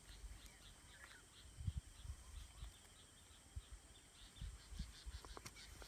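Quiet outdoor ambience: a steady run of faint, high, short chirps, about four a second, from a small animal. A few soft low thumps sound near the start and near the end.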